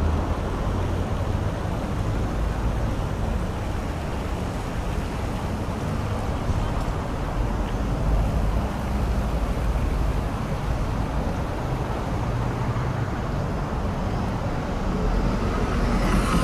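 Busy street ambience: steady road traffic with a low rumble of engines and tyres.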